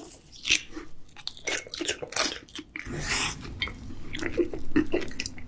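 Close-miked mouth sounds of someone chewing a large mouthful of raw salmon sashimi: repeated short, wet clicks and smacks.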